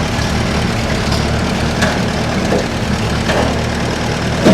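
Ferguson TEA20 tractor's four-cylinder petrol engine idling steadily, running its dynamo which is charging at about 14 volts. A few faint clicks sound over the idle.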